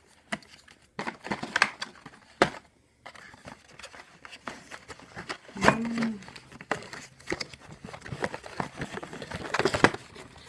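Cardboard box and packets of Tassimo T-disc pods being handled and pulled out: irregular crinkling and rustling, with sharp clicks and knocks.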